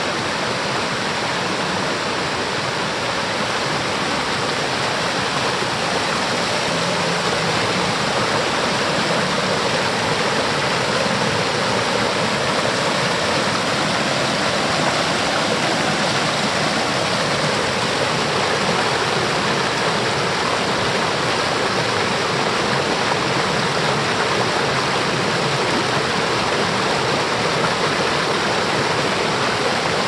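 Mountain stream rushing over and around boulders, a steady loud rush of water with no pauses.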